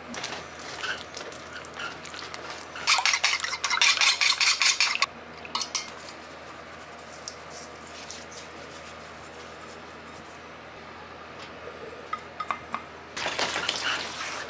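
A spoon stirring thick banana bread batter in a stainless steel mixing bowl, scraping and clinking against the metal in quick repeated strokes. It comes in two bouts: a loud one about three seconds in lasting two seconds, and another starting near the end, with quiet room tone and a few light taps between.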